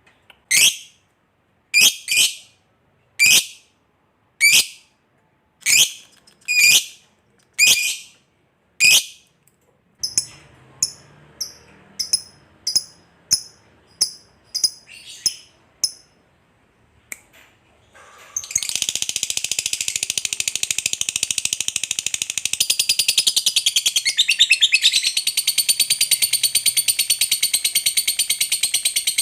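Lovebird calling: first a string of separate shrill calls about a second apart, then quicker, fainter chirps, and from about two-thirds in one long unbroken rapid chattering trill, the long chatter that fanciers call ngekek panjang.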